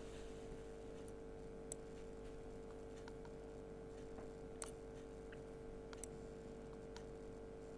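Computer mouse clicking a few times, three or four sharp clicks a second or more apart, over a faint steady hum.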